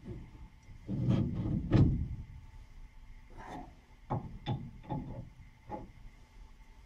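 Irregular clunks and knocks of hand tools and metal parts being handled while new steering tie rod ends are fitted on a truck's front end. A heavier cluster comes about a second in, followed by several sharper single knocks later on.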